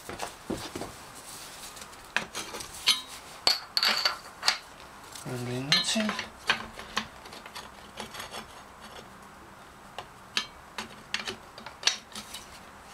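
Metal clinks and scrapes as a flat steel bar is shifted against the clutch basket and gear teeth of an Aprilia Caponord engine: a scatter of sharp, separate knocks throughout.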